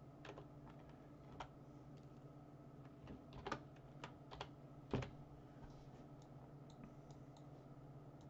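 Faint, irregular keystrokes on a computer keyboard, most of them in the first five seconds and only a few after, over a low steady hum.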